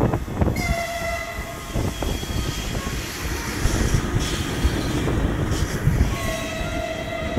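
Two long horn blasts, one about half a second in and one near the end, over the continuous rumble and sharp bangs of a fireworks salute.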